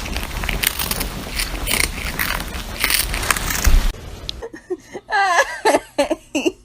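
Loud crunching, crackling noise that cuts off suddenly about four seconds in, followed by high-pitched, voice-like squeals or giggles.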